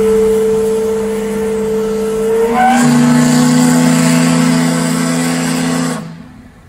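Steam whistle of the paddle-wheel riverboat Natchez blowing a long blast, a chord of several steady tones that shifts to a different chord about two and a half seconds in and cuts off sharply about six seconds in.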